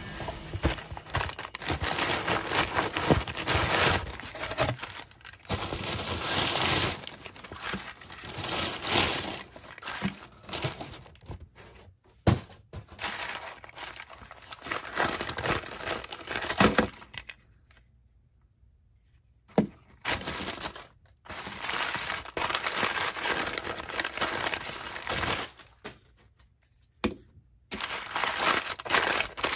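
Brown kraft packing paper being pulled from a cardboard box and unwrapped by hand, crinkling and crumpling in irregular bursts with a couple of short pauses and a few sharp knocks.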